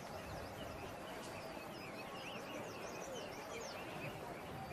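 Birds chirping in a forest: a steady run of short, quick high notes.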